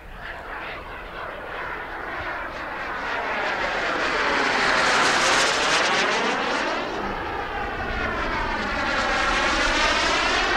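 Turbine engine of a CARF Models Mephisto RC sport jet in flight, a steady jet rush that swells to its loudest about halfway through as the jet passes close, then stays loud with a sweeping, phasing whoosh.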